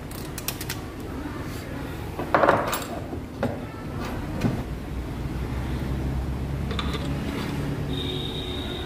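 Clicks and knocks of tools and engine parts being handled during engine reassembly, with a louder short scraping clatter about two and a half seconds in. A steady low rumble comes in about halfway through, and a thin high tone near the end.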